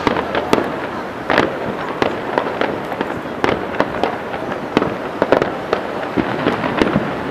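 Fireworks going off: a dense, irregular run of sharp bangs and crackles, several a second, over a continuous rumbling haze, with a few louder reports standing out.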